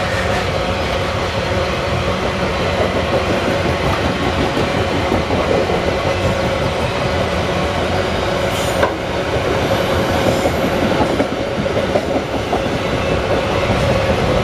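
Freight train wagons rolling past: a steady rumble of steel wheels on the rails with a clickety-clack, a steady high whine over it and a few sharp clanks.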